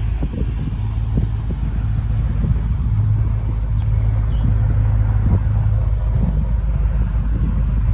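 Wind buffeting the microphone in irregular low gusts over a steady low drone.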